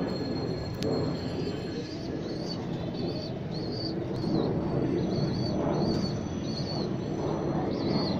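Pigeons cooing, with a baby bird's high, thin peeping calls repeated about twice a second.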